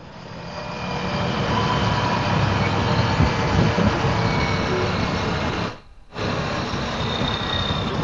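Ducati Multistrada V4 S motorcycle on the move: its V4 engine and a steady rush of wind on the microphone while riding. The sound cuts out for about half a second around six seconds in.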